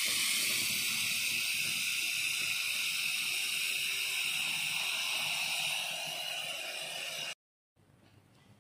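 A stream of running water pours into a pot of whole fish, rinsing them, with a steady hiss as the pot fills and foams. The sound cuts off abruptly about seven seconds in.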